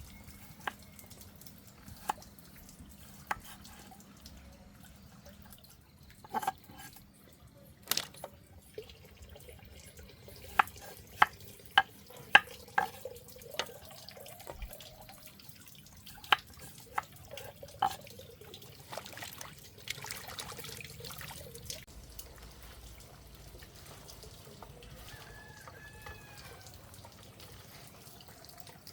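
Water trickling and dripping, as at a tap or sink, with a series of sharp knocks and clinks, most of them clustered in two bursts in the middle.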